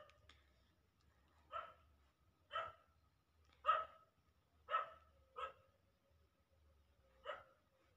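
A dog barking in short single barks, six in about six seconds, the loudest near the middle.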